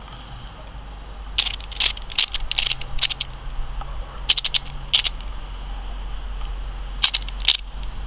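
A string of short, sharp crackling clicks in uneven clusters: several in quick succession, two more a little later, and a last pair near the end, over a faint steady hum.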